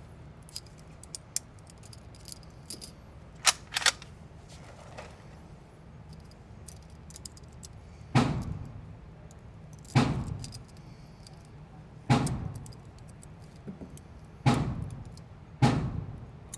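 Light metallic clicks and two sharp clacks of rifle handling, then five gunshots on a shooting range, each ringing out for about a second, the last two only about a second apart.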